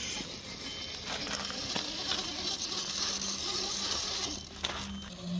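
Radio-controlled rock crawler climbing bare granite: a steady low electric-motor whine that starts about a second in, with a few sharp clicks and scuffs of the tires and chassis on the rock.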